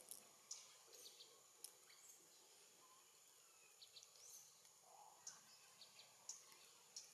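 Faint outdoor ambience with small birds giving short, high chirps and ticks every second or so, with a couple of quick sliding calls.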